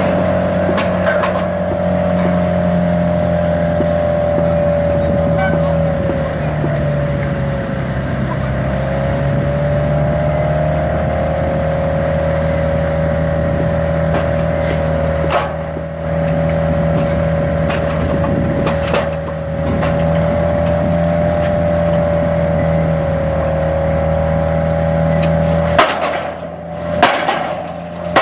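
Pile driver rig's engine running steadily with a slightly wavering pitch and a few knocks, then cutting off near the end, followed by several loud sharp impacts.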